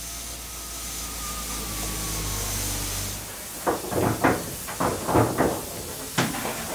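Steam locomotive hissing steam with a low hum. Then comes a quick run of about seven sharp metallic knocks and one more shortly after, as a grease gun is worked on the driving-wheel crank pin during lubrication.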